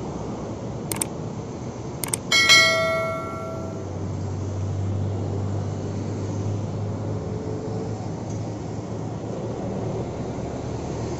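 Two mouse-click sound effects followed by a bright bell chime that rings out and fades over about a second, the click-and-bell of a subscribe-button animation laid over the footage. Behind it runs a steady low hum.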